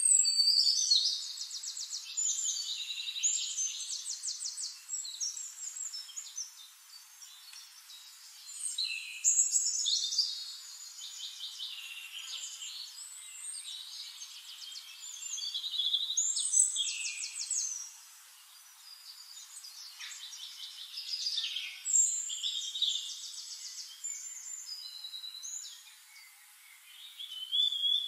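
Songbirds singing: high bouts of fast trills and chirps, each lasting a few seconds, that start again about every five to seven seconds.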